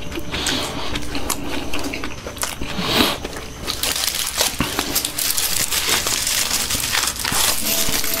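Close-up eating sounds of shawarma: biting and chewing, mixed with the aluminium foil wrappers crinkling as they are held and turned in the hands.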